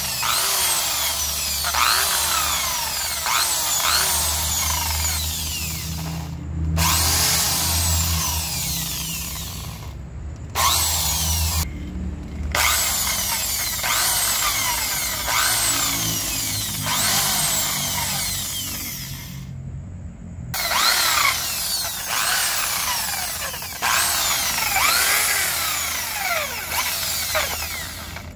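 Corded electric drill spinning a steel wire cup brush against a Yamaha Sniper 135 cylinder head, scrubbing the metal clean with a loud, harsh scratching hiss. The drill stops briefly a few times and starts again.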